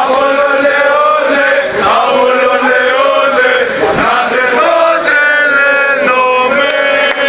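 Crowd of supporters singing a chant together in long held notes, mostly men's voices.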